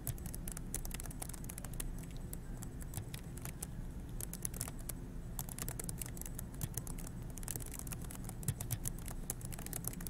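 Typing on a computer keyboard: a quick, irregular run of key clicks, several a second.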